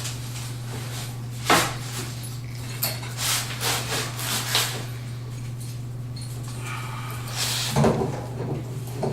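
Light knocks and clicks of plumbing fittings and tools being handled inside a sink cabinet while a supply stop is fitted, one sharp knock about a second and a half in, a cluster of smaller ones a few seconds later. A steady low hum runs underneath.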